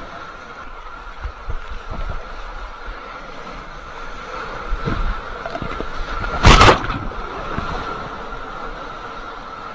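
Surf sloshing and washing against an action camera at the water surface, with low thumps of water on the housing and one loud splash about six and a half seconds in. A thin steady tone runs underneath.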